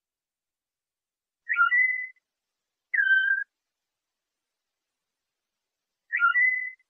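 Canary singing in the Moroccan 'flauta' style: three short, pure whistled notes, the first with a quick upward flick into a held note, a lower held note about a second later, and the first phrase repeated near the end, with dead silence between them.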